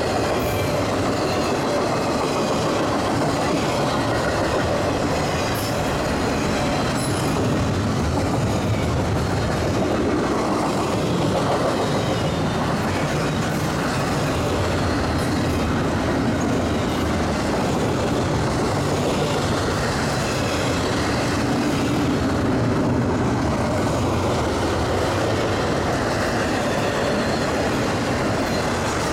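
Freight train cars rolling past at a steady level, their wheels clacking over the rail joints with some wheel squeal.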